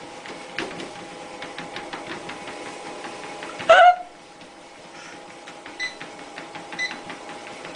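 A treadmill running, with a steady motor hum and rapid ticking from the belt. About halfway through comes a short, loud, pitched call that falls in pitch. After a cut, three short beeps about a second apart sound, of the kind a treadmill's console gives when its buttons are pressed.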